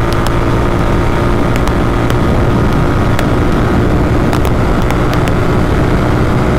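Royal Enfield Continental GT650's parallel-twin engine with a Red Rooster Performance exhaust running at steady high revs, at about 140 km/h in fourth gear, under a heavy rush of wind and road noise.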